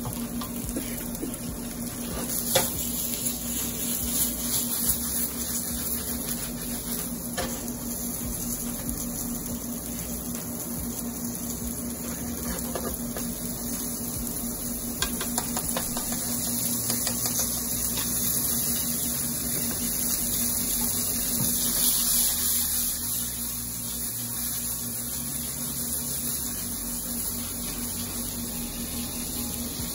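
Chicken sizzling steadily in a hot frying pan, with a few light clicks of utensils against the pan.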